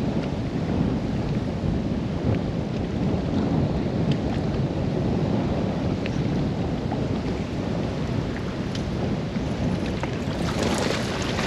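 Strong gusting wind buffeting the microphone over choppy water slapping against the boat. A few sharper ticks come near the end.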